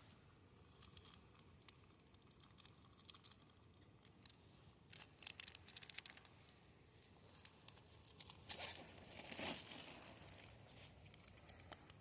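Faint crinkling and rustling handling noises with scattered small clicks, growing busier about halfway through and loudest in a rustle near the end.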